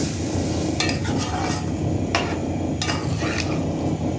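A metal spoon stirring a watery potato-and-meat curry in a metal cooking pot, clicking against the pot a few times, over a steady low hum.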